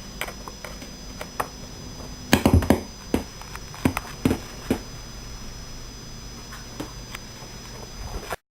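Scattered clicks and knocks of cables and a USB plug being handled and connected, loudest in a quick cluster a little over two seconds in. Underneath runs a steady hiss with a high-pitched whine. The sound cuts off abruptly to dead silence just before the end.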